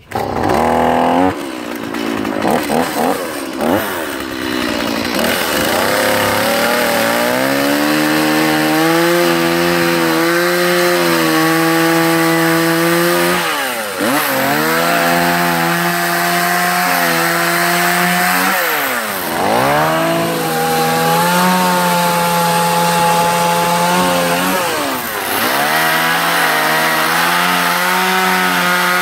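Stihl two-stroke chainsaw carving a log: a few seconds of uneven revving, then running at high revs with a steady engine note that dips in pitch and climbs back up three times.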